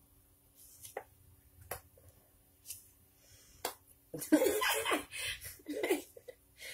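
Tarot cards being handled: a few sharp clicks about a second apart, then a woman's voice for about two seconds past the middle, the loudest part.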